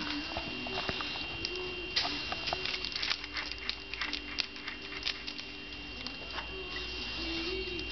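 Short hisses of an aerosol spray can aimed at a PVCu window's hardware, with a run of clicks and rattles as the window handle and its locking gear are worked back and forth.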